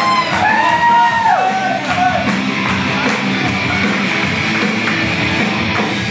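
Music with a voice singing in long sliding notes during the first two seconds or so, then the instruments carry on alone.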